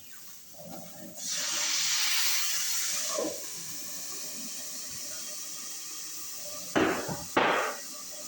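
Water hitting a hot frying pan of eggs hisses loudly in a burst of steam for about two seconds, then settles to a steady sizzle while the eggs steam-baste to set their tops. Two sharp knocks come near the end.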